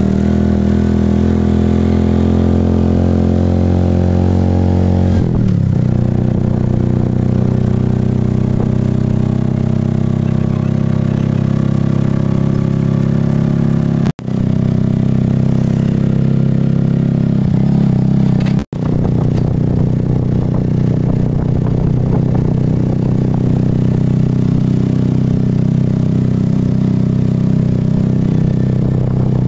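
Small motorcycle-type engine of a three-wheeled mototaxi running under way, heard from inside the passenger cab; its engine note changes about five seconds in. The sound cuts out briefly twice.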